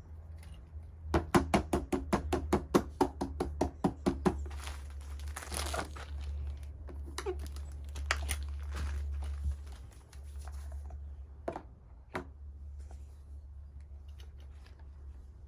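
Silicone pop-it fidget toy being pressed: a quick run of small pops, about seven a second for some three seconds, then rustling handling and a few single pops.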